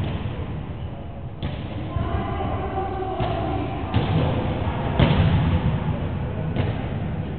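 A volleyball being struck and bouncing on a wooden gym floor: about five irregular, echoing thuds, the loudest about five seconds in. Players' voices are faintly heard between the thuds.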